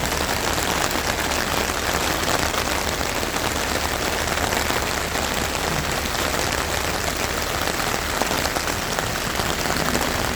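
Steady rain falling on a tent, a dense patter of drops heard from inside.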